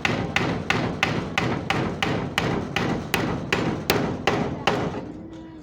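Hammer driving nails into timber: a steady run of sharp blows, about three a second, that stops near the end.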